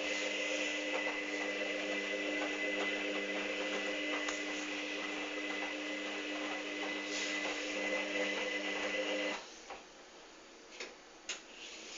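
Hoover Dynamic DYN 8144 D washing machine's drum motor running steadily with a hum, turning a load of towels, then stopping abruptly about nine seconds in. A few faint clicks and ticks follow.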